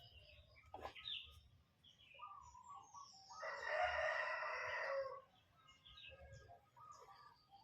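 A bird calling: one long, loud call lasting about two seconds, starting about three seconds in, with short bird chirps around it.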